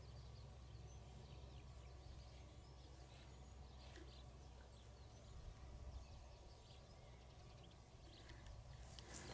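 Near silence: a low, steady wind rumble on the microphone, with faint scattered bird chirps.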